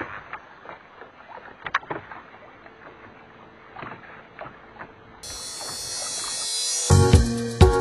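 Water lapping at a small fishing boat's hull, with a few light clicks from handling a baitcasting rod and reel. A steady hiss starts about five seconds in, and music comes in near the end.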